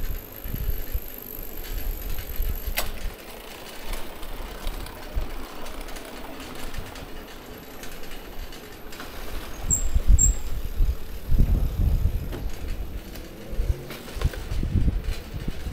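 City bicycle with a front wire basket rolling over paved street: uneven low rumble and rattle from the ride. There is a sharp click about three seconds in and two short high chirps around ten seconds in.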